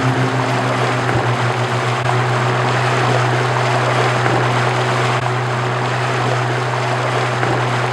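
Outboard motor of a small open boat running steadily at speed, a constant low drone under the rush of wind and water along the hull.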